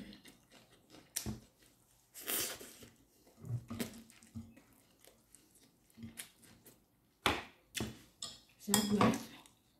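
Eating by hand: fingers picking and scraping fried rice on a ceramic plate, with chewing. Irregular short clicks and rustles, with a louder cluster near the end.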